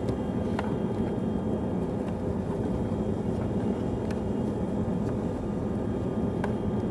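A steady low rumble throughout, with a few faint clicks from the pan as the fajitas are stirred.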